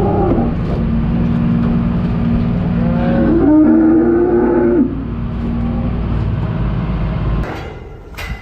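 An engine running steadily, with a cow mooing just at the start and again for a second or two about three seconds in; the engine sound falls away near the end.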